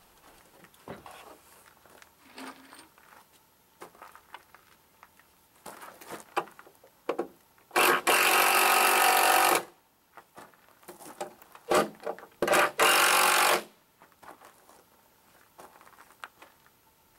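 A power tool runs in two bursts, about two seconds near the middle and a shorter one a few seconds later, between scattered knocks and clatter.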